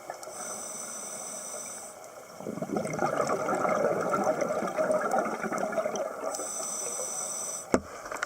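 Scuba regulator breathing underwater: a hissing inhale, a longer bubbling exhale, then another hissing inhale, with a sharp click near the end.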